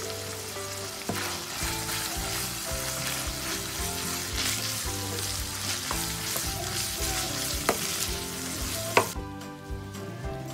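Minced meat and onions sizzling in a frying pan, stirred with a wooden spatula that scrapes and knocks against the pan. The sizzling stops about nine seconds in.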